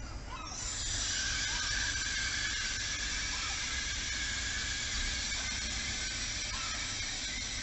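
Brakes of a Régiolis regional train squealing as it slows to a stop: a steady high-pitched squeal with a hiss, starting about half a second in.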